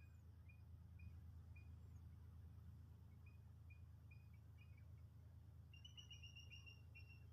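Faint, short high chirps from a small animal, about two a second, breaking into a quicker run of chirps about six seconds in, over a steady low hum.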